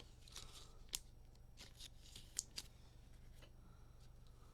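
Stack of Mosaic football trading cards being handled and flipped through by hand: faint rustling with a few short sharp clicks, the loudest about a second in and near the middle.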